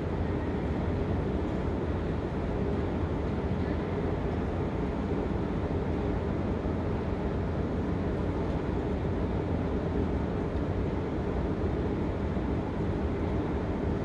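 Steady low hum and rumble of a long escalator running, heard from on its moving steps.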